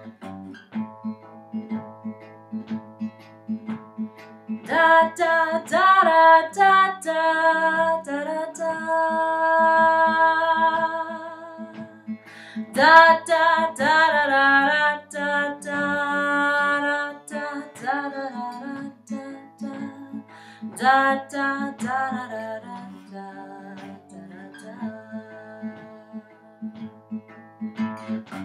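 A woman sings a blues song to her own Fender acoustic guitar. Sung phrases begin about five, thirteen and twenty-one seconds in, with the guitar playing alone between them and through the last few seconds.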